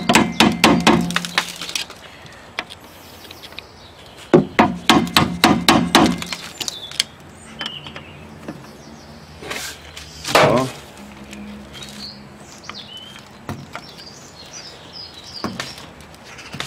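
Hammer tapping on the rear hub dust cap of a Renault Twingo's drum-brake hub, working the cap loose evenly from all sides. There are two quick runs of sharp strikes, several a second, a few seconds apart.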